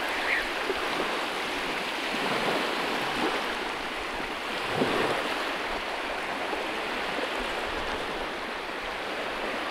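Steady rush of small waves lapping at the water's edge, with a slightly louder swell about halfway through.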